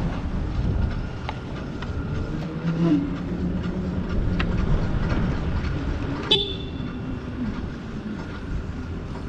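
Zero SR/F electric motorcycle rolling slowly, heard as a low rumble of wind and road noise with a faint steady whine from its electric motor. A single sharp click with a brief ringing comes about six seconds in.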